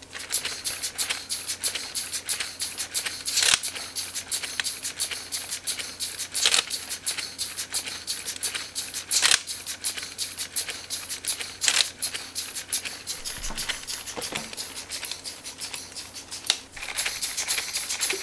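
Lego pneumatic engine running: a rapid stream of clicks from its cylinders and valves with the hiss of escaping air, and a stronger hiss about every three seconds. The clatter grows louder near the end.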